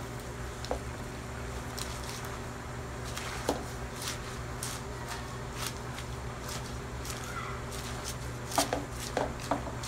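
Wooden spatula stirring and tossing water spinach in a metal wok, with scattered light taps and scrapes of the spatula against the pan and a few louder clatters near the end.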